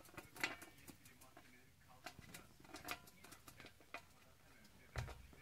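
Budgerigar's soft chattering warble, mixed with light clicks of its beak and claws on a metal tray. A dull thump about five seconds in.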